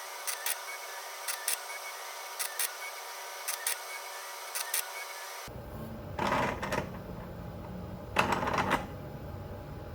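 Desktop robotic blacksmithing rig at work: paired mechanical clicks about once a second over a steady whine. About five seconds in the sound changes abruptly, and two louder half-second mechanical runs follow, about two seconds apart.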